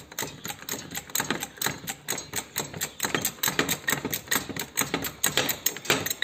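Hydraulic trolley jack being pumped by its handle with the release valve closed, raising the lift arm: rapid, uneven metallic clicking and clacking, several clicks a second.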